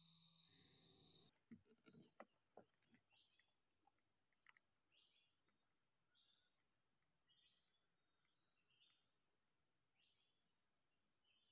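Near silence: faint forest ambience with a steady high-pitched insect drone and scattered faint chirps, plus a few soft clicks early on.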